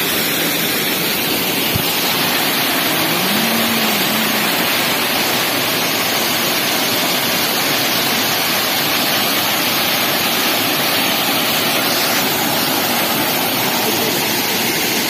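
Waterfall splashing onto rocks: a steady, unbroken rush of falling water.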